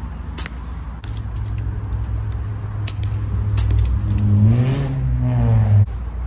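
An engine running steadily, then rising in pitch as it revs for about two seconds before cutting off suddenly. A few sharp cracks sound over it in the first half.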